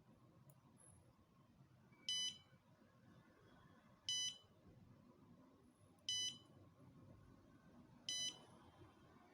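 Arduino smoke-detector alarm beeping: four short, high-pitched beeps about two seconds apart.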